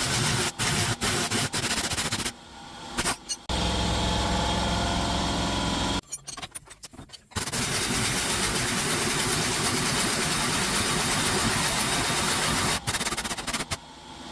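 A car's engine running, in short cut-together pieces: a steady engine note for a couple of seconds, then a long stretch of steady rushing noise, with several sudden cut-offs between pieces.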